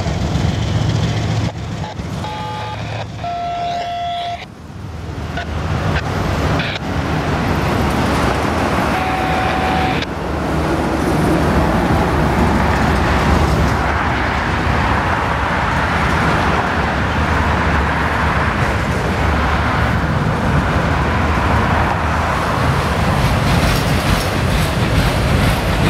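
Freight train of autorack cars rolling past: a steady rumble and clatter of steel wheels on rail, with a few brief high squeals in the first few seconds. About ten seconds in it becomes louder and fuller as the cars pass close by.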